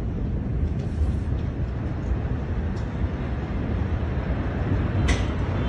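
Steady low rumbling noise picked up by a phone microphone, with a single sharp click about five seconds in.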